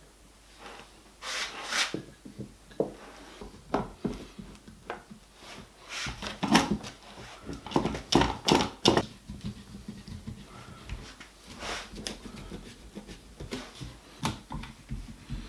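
Irregular wooden knocks and clatter as boards and strips of wood are handled and set down, busiest in the middle.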